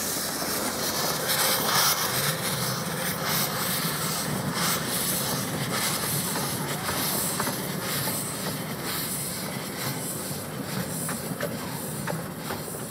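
Miniature 7¼-inch gauge steam locomotives running: a steady hiss of escaping steam with scattered clicks of wheels on the track.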